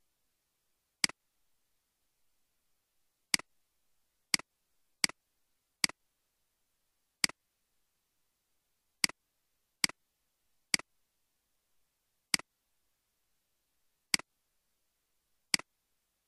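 Computer mouse clicks: twelve sharp single clicks at uneven intervals, about a second or two apart, with silence between them.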